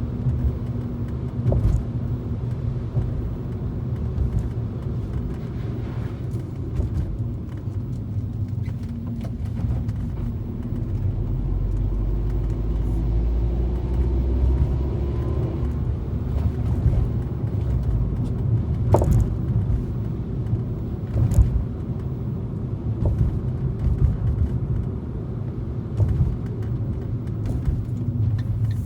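2013 Fiat 500 driving, with a steady low engine and road rumble and sharp clicks from under the car every few seconds as it goes over bumps. The source of the clicking is an unidentified fault underneath the car.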